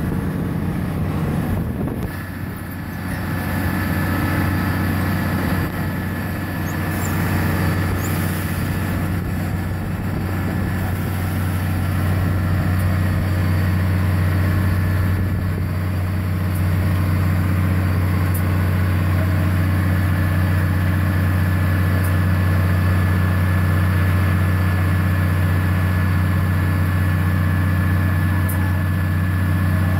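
Water-well drilling rig running steadily as it drills the borehole, its engine giving a deep constant drone with a thin steady whine on top. It gets a little louder about halfway through.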